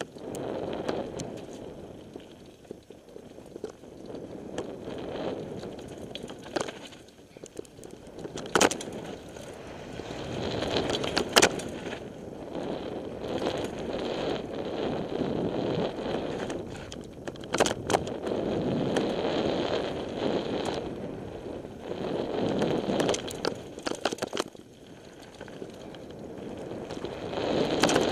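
Mountain bike riding down a dirt and gravel forest trail: a rushing noise of tyres and air that swells and fades with speed, broken by sharp clacks and rattles as the bike hits bumps.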